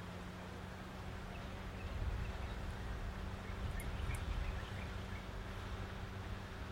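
Outdoor ambience: a low rumble with a steady low hum under it, and faint scattered bird chirps.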